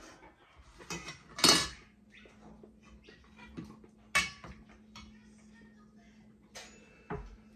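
A metal spoon clinking against dishes and a stainless steel bowl: a few sharp clinks, the loudest about a second and a half in, and one near the end that rings briefly, followed by a dull knock. A faint steady low hum sits underneath from about a second and a half in.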